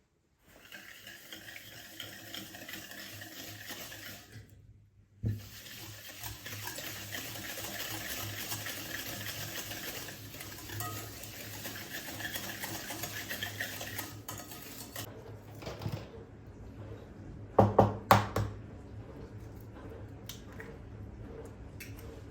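A utensil stirring and scraping in a mixing bowl, with dense small clinks, then several loud knocks against the bowl near the end.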